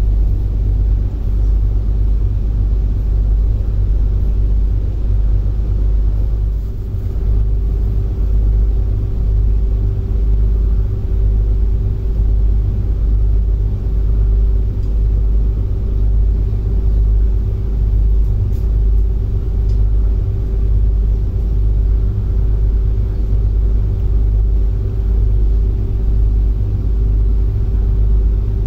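A harbour ferry's engines running steadily under way: a loud, even low rumble with a steady hum held throughout.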